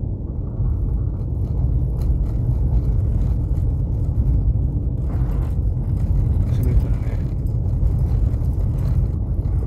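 Steady low rumble of a Subaru Impreza driving on a snow-covered highway, heard inside the cabin: tyre and road noise over packed snow with the engine running under it.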